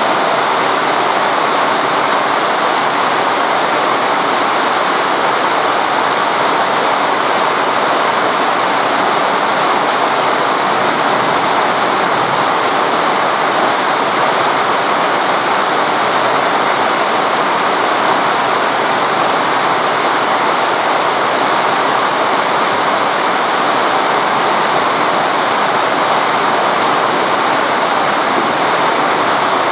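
Torrential rain pouring down with a loud, steady rush that does not let up.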